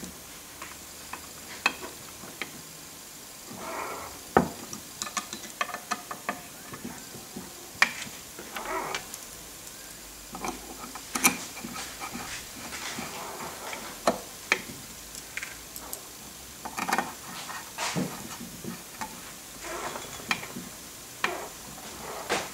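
Screwdriver tightening screws that fix a top plate to a linear guide block: irregular small metallic clicks, ticks and scrapes of tool and screws, with a few sharper knocks.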